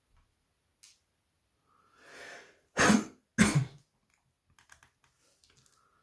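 A person coughs twice in quick succession, after a short intake of breath. Faint small clicks of a screwdriver working on phone screws follow.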